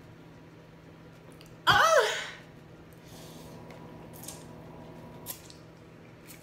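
A woman's short pained vocal cry, rising then falling in pitch, about two seconds in, as the spicy noodles burn her mouth. After it come soft slurps and sucked-in breaths as she eats noodles from the bowl.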